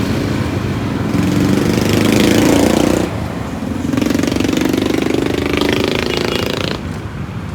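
Small motorcycle engines passing close by one after another, each a rough, throbbing run that rises in pitch. The first is loudest about two seconds in, and the second comes through from about four seconds and fades out near the end, over steady street noise.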